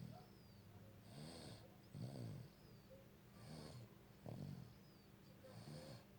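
A sleeping pet snoring faintly in a steady rhythm, one breath cycle about every two seconds, each a hissy, whistly snore followed by a lower rattling one.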